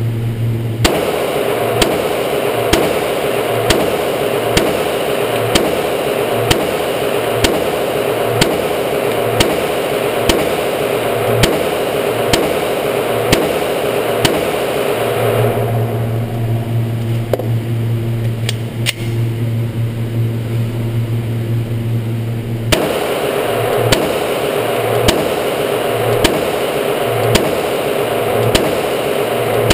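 Glock 22 .40 S&W pistol fired shot after shot at a steady pace, about one a second, each report a sharp crack over a constant loud background noise.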